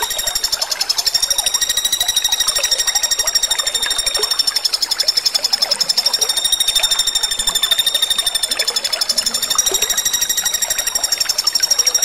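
Common flameback woodpecker (pelatuk bawang) calling in a continuous, fast, even rattle: a high, buzzy note pulsed many times a second without a break.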